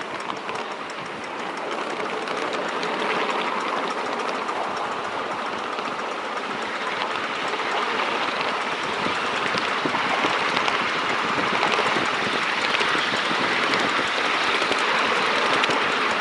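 7¼-inch-gauge miniature steam train running along its track, heard from on board: a steady rattling run of wheels clicking over the rails. It grows somewhat louder as the train goes on.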